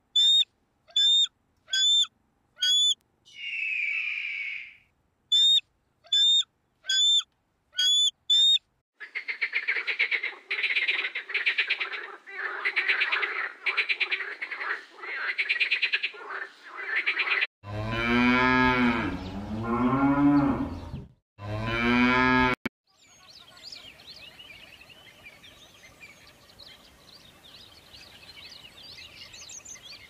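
A sequence of animal calls. First come two runs of short, high-pitched bird calls, four or five in each run. A long rasping, pulsing call follows, then two loud, deep drawn-out calls that rise and fall in pitch, and faint chirping near the end.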